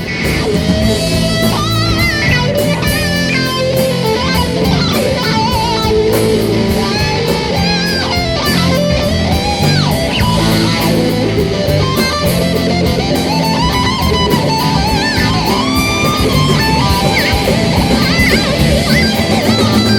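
Live rock band playing loud and steady: electric guitars over bass and a regular drum beat, with a wavering, bending lead line on top, as captured by a Tascam DR-40 handheld recorder.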